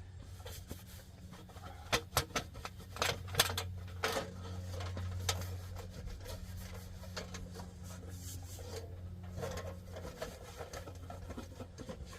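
A dry rag rubbing and wiping dirt off a forced-air heater's housing, with scattered clicks and knocks of the parts being handled, loudest about two to three and a half seconds in. A steady low hum runs underneath.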